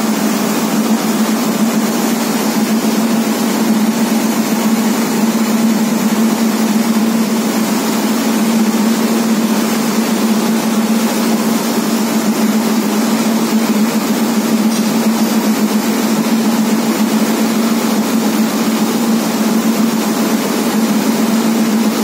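A machine running steadily: a constant low hum with a hiss above it, unchanging throughout.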